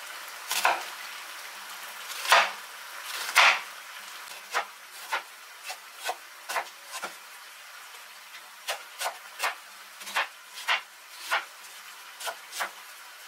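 Chef's knife slicing an onion into thin strips on a wooden cutting board: sharp knocks of the blade on the board at an uneven pace, the loudest few in the first four seconds. Chicken sizzles faintly in a pot underneath.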